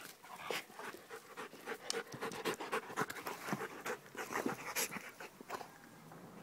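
Dogs wrestling in play: quick panting with many short, irregular scuffs and clicks of their bodies and jaws.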